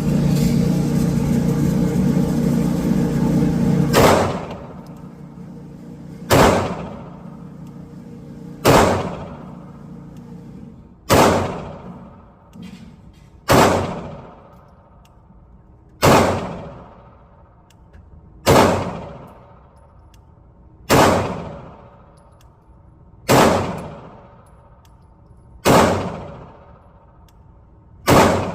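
9mm pistol fired slowly, eleven single shots at an even pace of about one every two and a half seconds, each with a ringing tail. Before the first shot, a steady droning noise for about four seconds.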